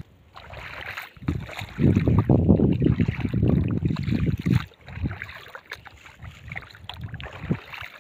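Wind on the microphone over shallow seawater, with light splashing and lapping; a louder low rumble of wind lasts about three seconds in the middle.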